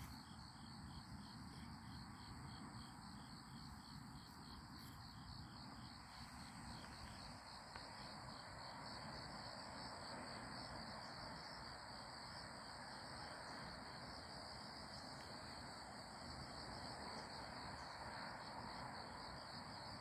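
Insects chirping in the grass: a steady high trill, with a separate pulsed chirp repeating about three times a second for the first several seconds, faint over a quiet outdoor background.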